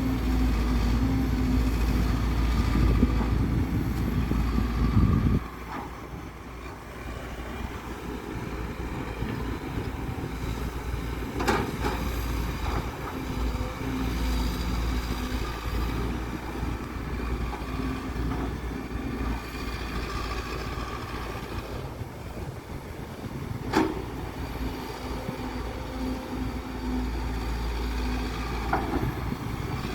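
Kobelco excavator digging soil: the engine and hydraulics run steadily, much louder for the first five seconds, then settling lower. Two sharp metallic clanks come about twelve seconds apart.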